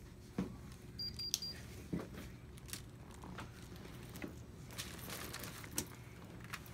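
Electronic thermometer beeping briefly about a second in, the signal that an underarm temperature reading is done. Faint rustling and a few soft knocks around it.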